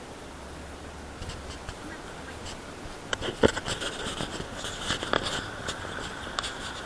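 Blizzard wind rumbling on the microphone. About three seconds in, a run of crackling and scraping clicks starts and continues.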